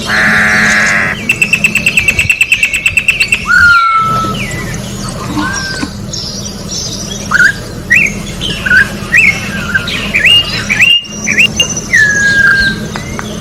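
Campo troupial (corrupião) singing: a harsh rasping call about a second long, then a rapid trill, then a long series of short, clear whistled notes that swoop up and down.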